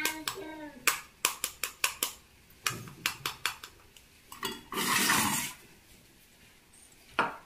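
Steel tumbler, steel bowl and plastic tea strainer clinking and knocking as soaked sabja seeds are tipped into the strainer. There is a brief rushing noise about five seconds in.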